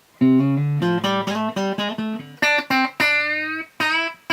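Fender Telecaster electric guitar played clean through a Fender Super 210 amp with no compressor in the chain: a quick run of plucked single notes, then a few louder notes left to ring.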